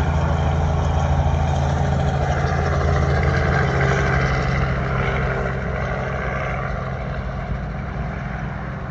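Helicopter passing, a low steady rotor and engine sound that swells about three to four seconds in and then fades away.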